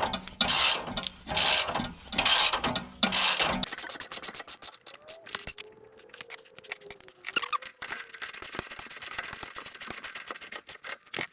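Hand ratchet wrench being worked in strokes to tighten suspension bolts: a rasp of pawl clicks a little under a second apart for the first few seconds, then fainter scattered clicks.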